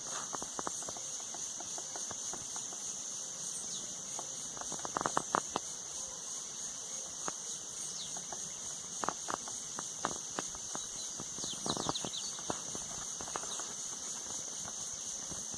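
A steady, high-pitched chorus of insects, with scattered sharp clicks and taps that cluster about five, nine and twelve seconds in.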